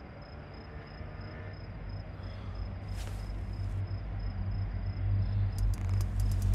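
Crickets chirping in an even pulse at night, over a low hum that swells gradually louder. A short hiss about three seconds in and a few sharp clicks near the end.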